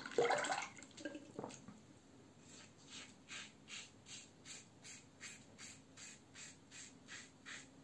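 Muhle R89 safety razor with a Treet stainless steel blade scraping through lathered stubble in quick short strokes, about three a second, starting about two and a half seconds in. A brief voice sound comes at the very start.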